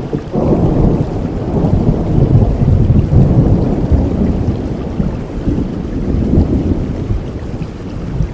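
A long roll of thunder rumbling over steady heavy rain, swelling within the first second, loudest about two to four seconds in, then slowly fading.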